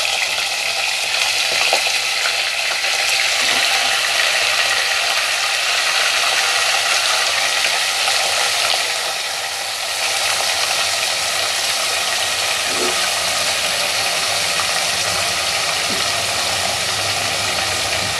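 Raw chicken pieces sizzling and crackling in hot oil in a pan as more pieces go in, with a few faint knocks. The sizzle dips briefly about halfway through.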